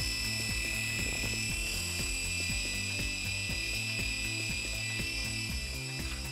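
Air Hogs Hawk Eye micro RC helicopter hovering: its small electric motors and counter-rotating rotors give a steady high whine, with background music underneath.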